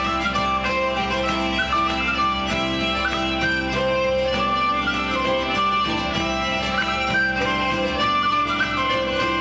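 Live folk music: a whistle plays the melody over the steady drone of a hurdy-gurdy, with strummed acoustic guitar.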